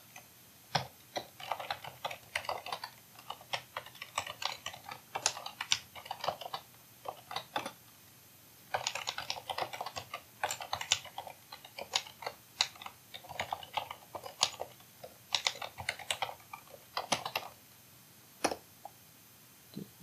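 Typing on a computer keyboard: quick runs of keystroke clicks separated by pauses of a second or so, ending with a single click near the end.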